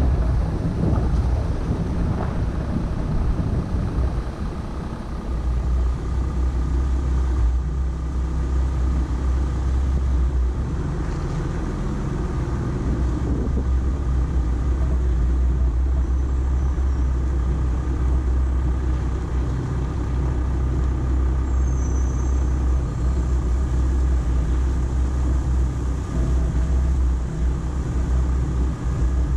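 Volkswagen Amarok pickup driving, with a steady low engine rumble that settles in about five seconds in, under a continuous haze of vehicle and road noise.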